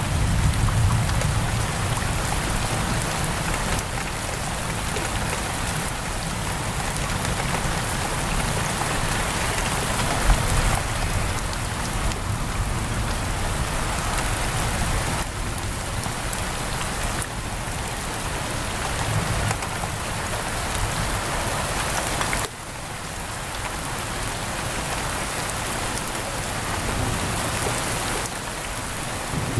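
Heavy rain pattering steadily on a window, with a low rumble near the start. The level drops suddenly about two-thirds of the way through, then builds back.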